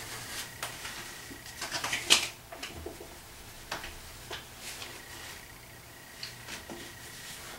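Soft scratchy rustles and light clicks of makeup being handled and brushed on, the loudest cluster about two seconds in, over a faint steady electrical hum.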